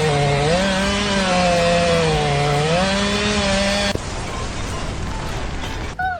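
A small motor or power tool running loudly, its pitch dipping and rising a few times, then cutting off about four seconds in, leaving a quieter hiss.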